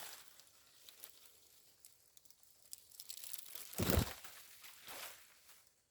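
Crackling, crumpling rustle with scattered small clicks, and one dull, heavier thump about four seconds in; it dies away just before the end.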